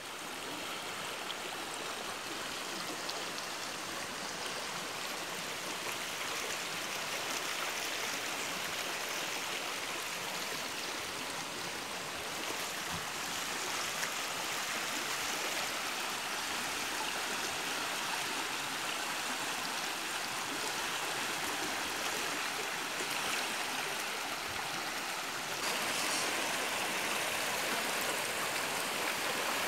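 Rain-swollen, muddy stream in flood, its water rushing steadily over and along eroded banks. The rush gets a little louder a few seconds before the end.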